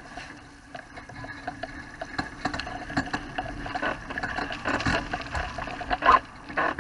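Water rushing and splashing against the hull of a Wayfarer sailing dinghy under way, with many small knocks and ticks throughout and a brief louder noise about six seconds in.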